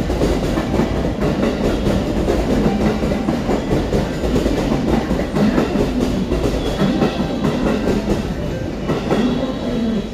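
Freight train passing through the station: a steady rumble with a rapid clatter of wagon wheels over the rail joints, easing slightly near the end.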